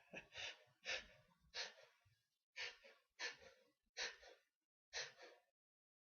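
A person's short, breathy gasps, about seven in a row with brief pauses between them: the hitching breaths of someone working up to a sneeze that has not yet come.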